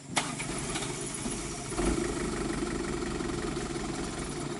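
Mitsubishi Colt Diesel truck's diesel engine running, with a sharp click just after the start. About two seconds in the engine gets louder and takes on a steadier, stronger note, which it holds.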